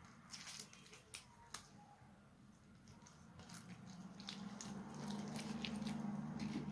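Soft, oiled msemen dough squishing and clicking wetly as it is pinched off and rolled into small balls by hand. A low steady hum grows louder in the second half.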